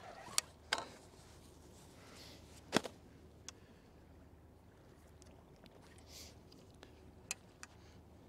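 A handful of short, sharp clicks and knocks from fishing rod and reel gear being handled, the loudest about three seconds in, over a faint steady background hiss.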